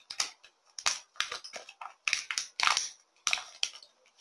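Clear plastic packaging crinkling as it is pulled open by hand, in a run of short, irregular crackles with small gaps between them.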